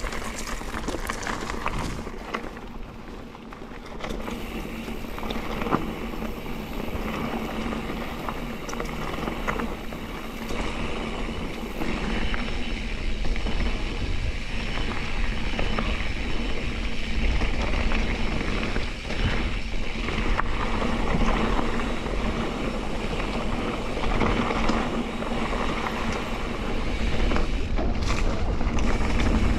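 Mountain bike ridden over a dirt singletrack: tyres rolling on packed dirt and loose stones, with frequent knocks and rattles from the bike over bumps. Wind rumbles on the microphone, louder from about halfway through.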